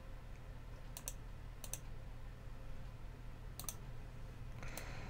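Computer mouse clicking about four times, each click a quick double snap, over a faint steady low hum.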